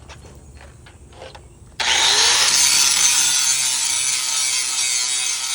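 Angle grinder grinding metal: a loud, steady rasping noise that starts suddenly about two seconds in, after a few faint clicks.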